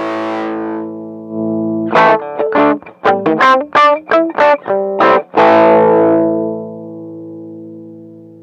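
Electric guitar through distortion: a chord rings out and fades, then about two seconds in comes a quick run of short picked notes, ending on a chord left to ring and slowly die away.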